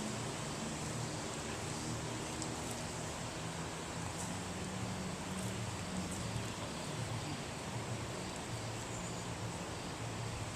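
Steady rushing outdoor noise with a wavering low rumble and no distinct events.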